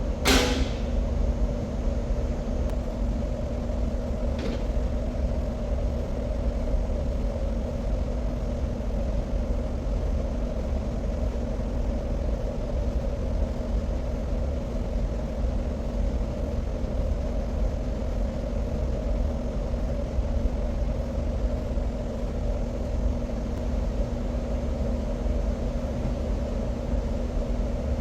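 Steady low rumble of heavy machinery with a constant hum. A sharp click comes just after the start, and a fainter one about four seconds later.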